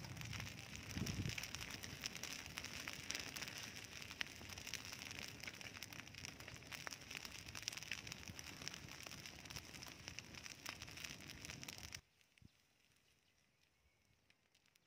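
A pile of dry straw burning, crackling and popping steadily in a dense run of small snaps. The crackling cuts off abruptly about twelve seconds in.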